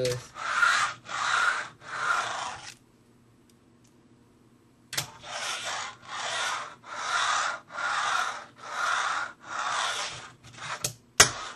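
Fingerboard rolled back and forth on Flatface G6 urethane wheels with bearings: a run of even rolling swishes, about one and a half a second. The swishes stop for about two seconds, then resume, with a few sharp clicks of the board striking the surface.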